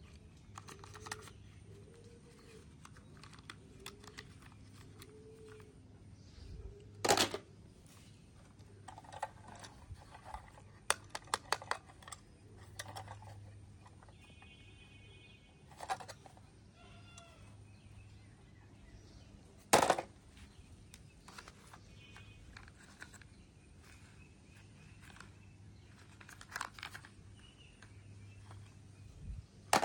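Small plastic toy trucks being handled and turned over in the hand: scattered light clicks and rattles, with two louder knocks, about a quarter of the way in and again about two-thirds through.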